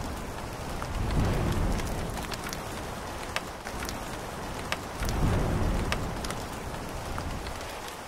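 Rainstorm sound effect: steady rain with scattered sharp drop ticks, and low thunder rumbles swelling about a second in and again about five seconds in. It eases off near the end.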